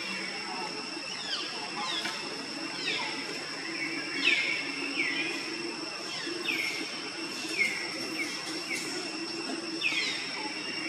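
Animal calls: short high chirps, each falling in pitch, repeated roughly once a second over a steady high whine.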